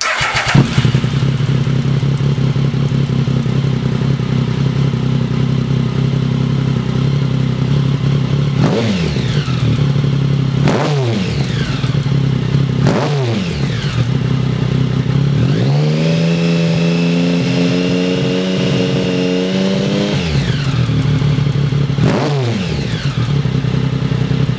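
Triumph Speed Triple's 1050 cc three-cylinder engine running through a Lextek GP1 aftermarket silencer, starting with a loud burst. It idles steadily, with four quick throttle blips that rise and fall in pitch, and one rev held steady for about four seconds in the middle before it drops back to idle.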